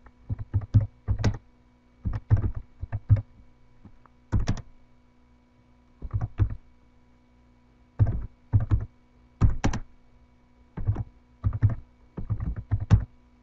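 Computer keyboard being typed in short runs of keystrokes with pauses between them, over a faint steady electrical hum.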